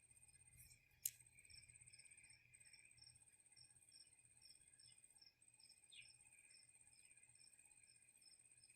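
Faint, regular high-pitched chirping, about three pulses a second, over a steady faint high whine, typical of an insect. One sharp click comes about a second in.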